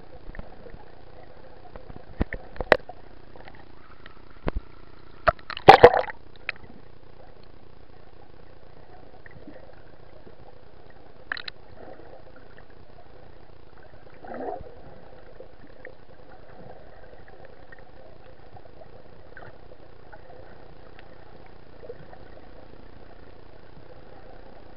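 Underwater recording of the sea around a swimming camera: a steady muffled water hiss with scattered sharp clicks and knocks. The knocks come in the first six seconds, with the loudest cluster about six seconds in, and one more click comes about eleven seconds in.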